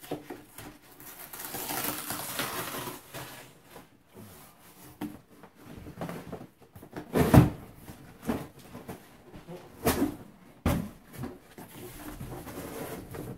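Cardboard rustling and scraping as a boxed item is worked out of a cardboard shipping box. A heavy thump comes about seven seconds in, then two sharper knocks a few seconds later.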